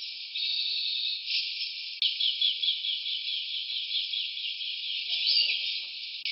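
Jungle ambience dominated by a dense, high-pitched insect chorus, steady throughout. From about two to five seconds in, a run of short repeated calls comes through at about five a second.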